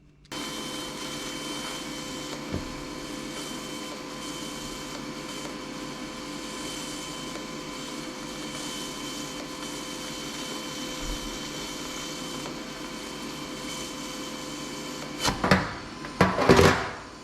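Electric arc welding of two steel nuts: a steady hissing arc noise with a constant whine under it, then a few louder, irregular bursts near the end.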